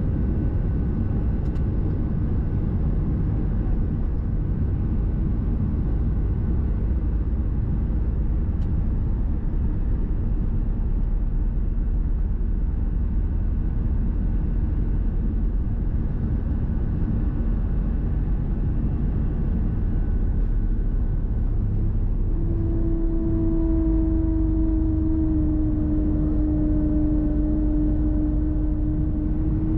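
Steady low roar of an Airbus A320-214's CFM56 jet engines at takeoff-climb thrust, heard inside the cabin. About 22 seconds in, a loud steady howl sets in from the left engine and sinks slightly in pitch.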